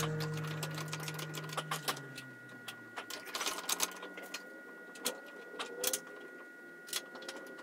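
Scattered light clicks and taps of hand work on the car's front end as parts are fitted back on, irregular with a few sharper knocks, over a faint steady high-pitched tone.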